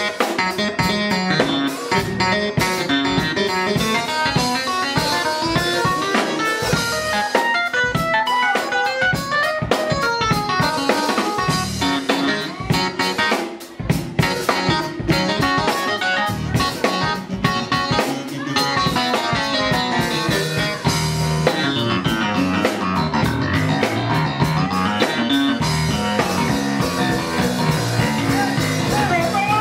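Live band playing an instrumental passage: electronic keyboard and electric bass guitar over a drum kit, with a brief drop in level about halfway through.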